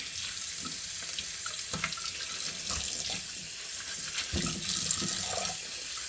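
Kitchen tap running steadily onto cinnamon leaves being rinsed by hand, the water splashing into a saucepan of water in a stainless steel sink, with a few short splashes and knocks.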